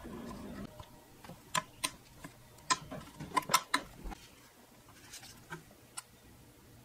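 Irregular sharp clicks and taps of small metal and hard plastic parts being handled and fitted, a dozen or so, bunched in the first half: a metal tube being seated in the oil reservoir under the bed of a Pfaff 1245 industrial sewing machine.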